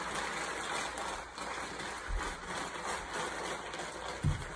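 Plastic tarp rustling and crinkling as it is rolled tight around a wooden pole, with one dull low thump near the end.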